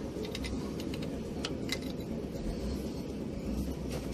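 A wrench working the mounting nut of a truck starter motor: a few light metallic clicks in the first couple of seconds, over a steady low background rumble.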